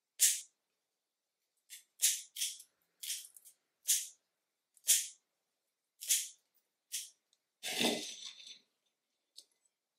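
Kitchen scissors snipping through broccoli stems: about ten crisp snips at irregular intervals, roughly one a second. Near eight seconds a longer, fuller rustle as the cut florets are swept together on the wooden table.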